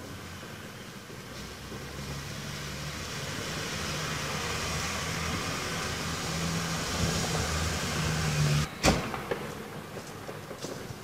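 A vehicle engine runs steadily in the street, growing louder over several seconds. Then a single sharp gunshot cracks out about nine seconds in, the loudest sound here.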